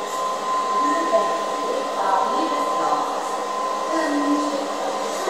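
Murmur of many indistinct voices over a steady background noise, with a thin steady tone running through it.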